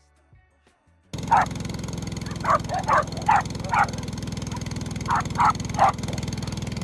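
A dog barking repeatedly, in quick groups of two or three barks, over a steady engine running underneath. Both start abruptly about a second in.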